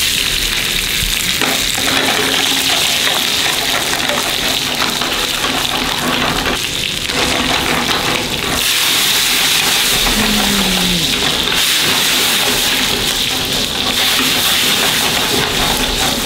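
Food sizzling loudly and steadily on a very hot surface, a little louder in the second half.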